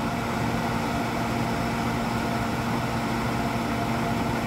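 A fan's steady hum with a low droning tone, unchanging throughout.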